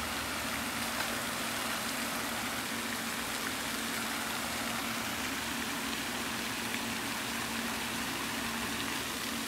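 Steady rushing hiss of a pond fountain aerator's spray falling back onto the water, with a steady low hum underneath.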